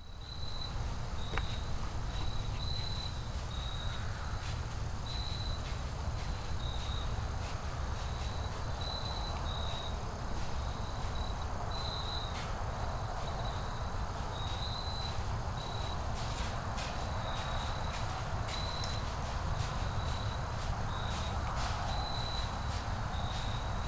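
Insect chirping: short, high chirps at one steady pitch, repeating irregularly about once a second, over a steady low rumble. A few faint ticks come in the second half.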